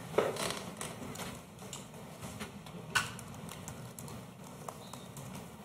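Quiet lecture-hall room noise with a few scattered clicks and knocks, the sharpest about a fifth of a second in and again about three seconds in.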